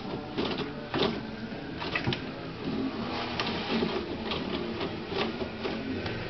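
Toilet paper pulled and torn off a wall-mounted roll by a cat, with irregular rustles and sharp clicks from the paper and the roll on its holder.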